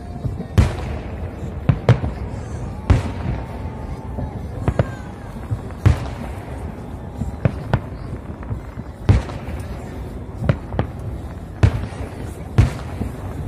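Aerial firework shells bursting in a festive salute: about a dozen sharp bangs spaced roughly a second apart, each trailing off in an echo.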